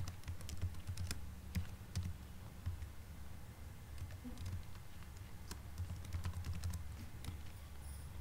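Keystrokes on a computer keyboard, typed at an unhurried, uneven pace over a low steady hum.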